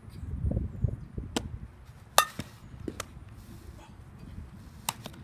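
Sharp knocks of softball fielding practice, a hard ball being struck and caught, four times, the loudest about two seconds in, after a low rumble in the first second.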